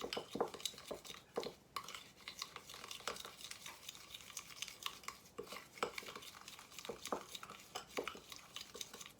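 A utensil stirring a paste of dry spices and olive oil in a bowl, with irregular clinks and scrapes against the bowl.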